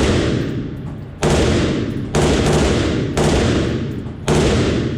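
Select-fire machine gun firing single shots, five in all, about a second apart, each ringing out before the next.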